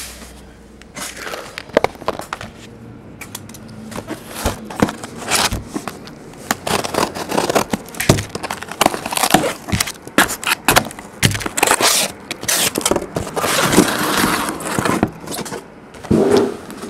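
Plastic shrink wrap on a trading card box being cut with scissors and pulled off. It crinkles and scrapes, with frequent sharp clicks and knocks from the box being handled, and a longer burst of crinkling near the end.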